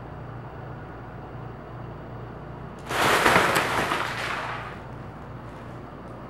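A cat racing through a fabric play tunnel: a loud rustling rush of the tunnel's fabric about three seconds in, fading out over about two seconds.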